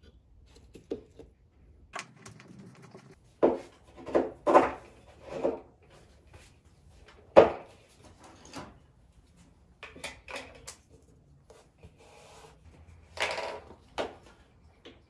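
Hand work on a surfboard: tools and parts being picked up, set down and rubbed against the board, heard as scattered knocks, clunks and scraping. A cluster of louder knocks comes about three to six seconds in, a single sharp knock a little after seven seconds, and a longer scraping noise near the end.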